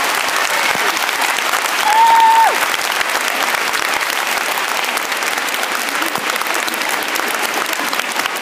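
Theatre audience applauding, a dense steady clatter of many hands clapping. About two seconds in, one brief held high call from the crowd stands out, falling in pitch as it ends.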